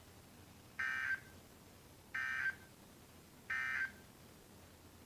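Emergency Alert System end-of-message data burst: three short, buzzy warbling tone bursts, about a second and a half apart, signalling that the alert broadcast has ended.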